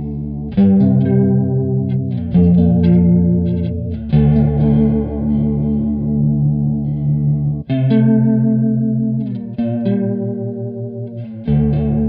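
Electric guitar, a Fender Jaguar, playing sustained chords through a Drunk Beaver JellyFish analog chorus pedal, a Small Clone-style circuit on an MN3007 bucket-brigade chip, which gives the chords a wavering chorus. Six chords are struck, each left to ring.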